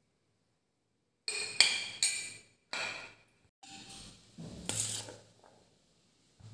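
A spoon clinking against crockery while pickle is being served: a run of sharp, briefly ringing clinks with a little scraping between them, starting about a second in.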